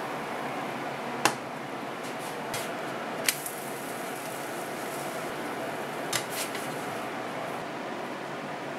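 A few sharp clicks and taps of a plastic spatula against a nonstick frying pan as a crepe is flipped and lifted, over a steady, even hiss with a faint hum.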